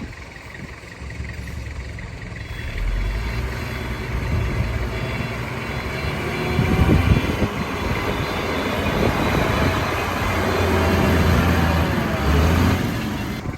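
Heavy diesel engine of construction machinery running under load, getting louder about three seconds in, with a few knocks partway through; the sound drops off abruptly at the very end.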